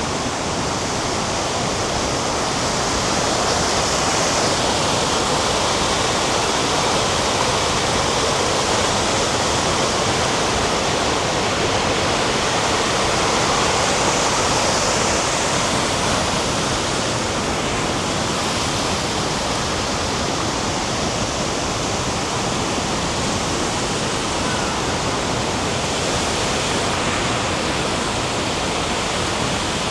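Steady, loud rush of water from Tegenungan Waterfall, close by.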